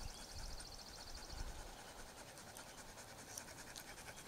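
Faint, rhythmic panting of resting Norwegian Elkhounds, with a high, fast-pulsing trill in the first second and a half.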